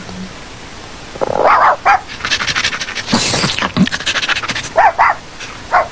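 A cartoon dog giving a few short yips and whines that glide in pitch, with a noisy stretch in the middle.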